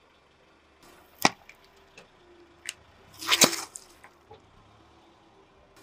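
Plastic toy bubble-solution bottles crushed under a car tyre: a sharp crack about a second in, a few small crackles, then a louder burst with a splash of liquid spraying out around three and a half seconds in.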